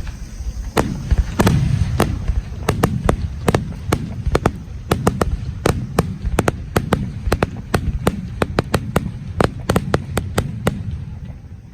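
Fireworks bursting in a rapid barrage: dozens of sharp bangs over a continuous low rumble, dying away near the end.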